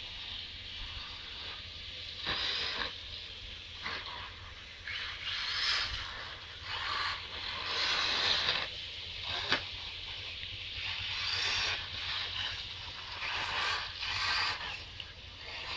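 A radio-controlled off-road car running on a dirt track: a hissy whirr and scrape of its motor and tyres on loose dirt that swells and fades every second or two.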